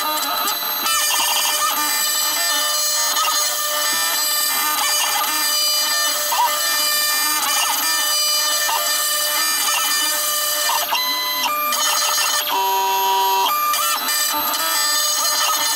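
CNC router milling a wooden knife handle scale: a steady high spindle whine over stepper-motor tones that shift in pitch as the axes move. Brief steady held tones sound about 11 and 13 seconds in.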